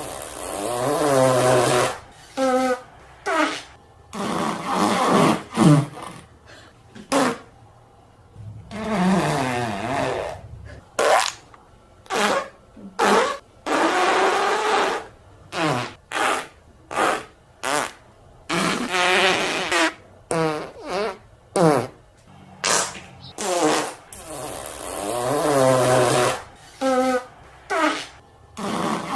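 A rapid string of fart sound effects: long trumpeting farts whose pitch bends and wavers, alternating with many short, sharp blasts. Near the end the opening run of sounds repeats.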